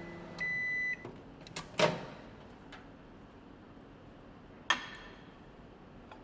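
Microwave oven at the end of its heating cycle: its running hum stops and it gives a long high beep within the first second. A sharp knock follows about two seconds in, and a short click near five seconds.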